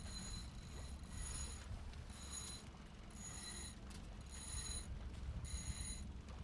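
Wind rumbling on the microphone of a small sailboat under way over choppy water, with a thin high-pitched ringing tone that pulses on and off about once a second.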